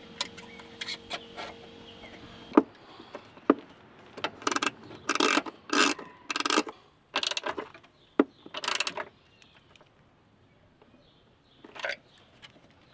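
Ratchet wrench tightening the bolt that holds the clutch fluid reservoir's bracket. It comes in bursts of short clicking strokes, about eight between four and nine seconds in, and one more near the end.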